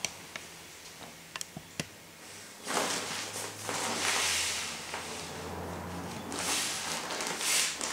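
Nylon fabric of a roll-top compression dry bag rustling and crinkling as it is squeezed and folded by hand, in several uneven surges starting about three seconds in. A few light clicks and taps come before it.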